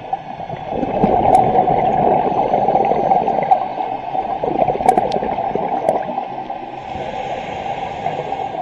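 Underwater gurgling of a scuba diver's exhaled regulator bubbles, heard through the camera housing. It swells about a second in and eases after about six seconds, with a few sharp clicks.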